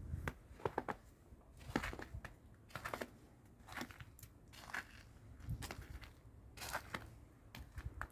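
Footsteps crunching in fresh snow, about one step a second, over a low rumble of wind on the microphone.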